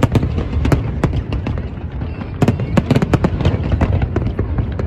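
Fireworks going off in quick succession: many sharp bangs and crackles over a continuous low rumble, with a thick flurry of reports about halfway through.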